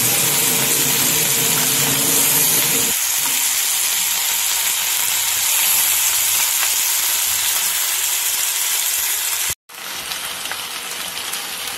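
Whole masala-coated chicken, already cooked, sizzling steadily as it fries in hot oil in a pan to brown its outside. About nine and a half seconds in, the sizzle cuts out for a moment and then comes back softer.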